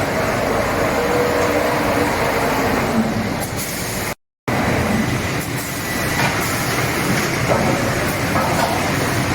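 Spindleless veneer peeling lathe running with a steady mechanical noise. The sound cuts out completely for a moment about four seconds in, then resumes.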